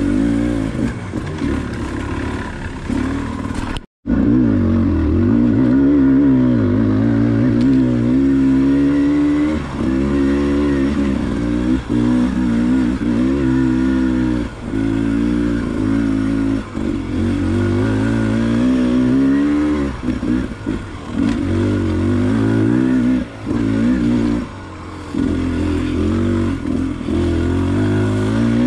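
Enduro dirt bike engine ridden on a trail, revs rising and falling every second or two as the throttle opens and closes. The sound cuts out for an instant about four seconds in.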